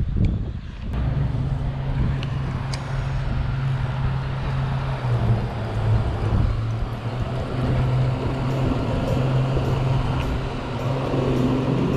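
Outboard motor of a bass boat passing by, a steady low drone that sets in about a second in and holds.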